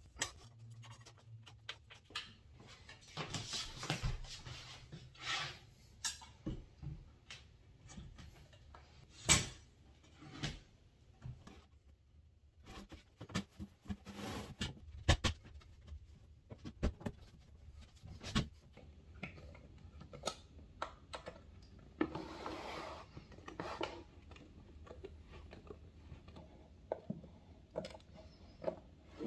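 Hands handling and setting down objects: scattered clicks and light knocks, with short stretches of rustling a few seconds in and about three-quarters of the way through.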